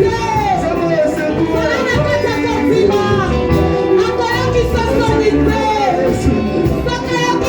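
Music: voices singing a church song over instrumental accompaniment with a full bass.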